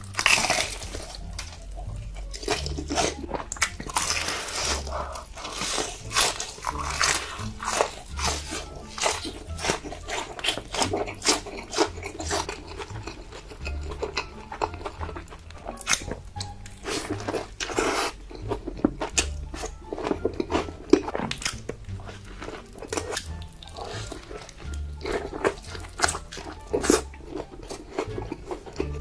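Close-miked crunching and chewing of crisp food, many irregular bites and crunches, over background music with a steady bass line.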